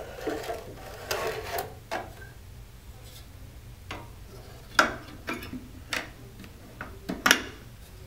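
Battery packs scraping and rubbing as they are slid into an HV-100 robot's battery compartment, then a series of sharp metallic knocks and clicks as the metal battery box cover is closed and pressed down.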